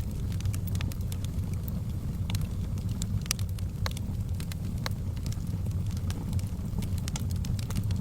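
Wood fire in a fireplace crackling: irregular sharp pops and snaps over a steady low rush of burning.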